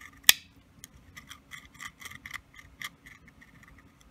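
Flat file drawn in short, light strokes across the corner of a stamped-steel pistol magazine's feed lip, a few strokes a second, smoothing off the rough edge left by the stamping. A sharp click stands out near the start.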